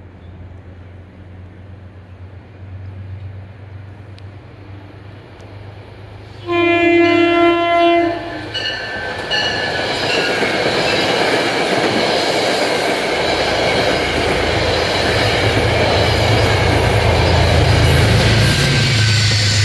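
Metro-North diesel push-pull train approaching and passing close by. A horn blast of about a second and a half sounds, then a couple of short toots, then steady wheel-and-rail noise as the coaches roll past. The low drone of the diesel locomotive at the rear swells near the end as it goes by.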